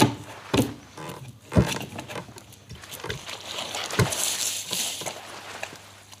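Film foley effects: a string of squelching thuds, with four loud hits, then a hiss of noise that swells about four seconds in.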